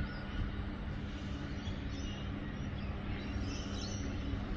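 Low steady rumble and hum of a distant container freight train approaching, with birds chirping several times over it.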